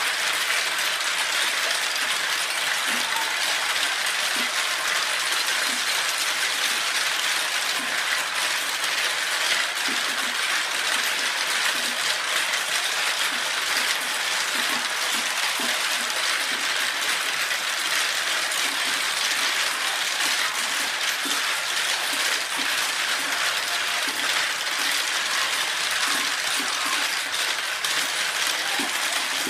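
Many marbles rolling and clattering through a large clear-plastic marble run's tubes, spiral funnels and curved tracks: a steady, dense rattle of many small clicks.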